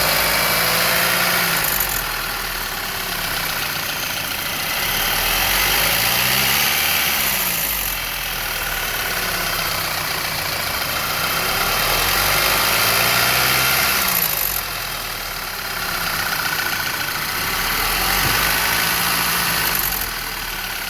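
Car engine revved gently and let fall back to idle several times, with a ticking or clicking noise that shows up as the rpm drops.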